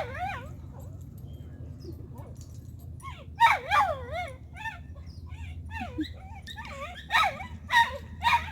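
A dog whining and yelping in short, high, wavering cries: one at the start, a cluster about three seconds in and another near the end. The cries sound like distress.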